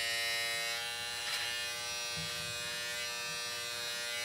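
Vacuum beard trimmer running as it is drawn through a beard: its motor and suction fan give a steady, even whine.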